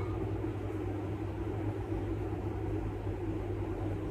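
Steady low background hum and rumble with no distinct events.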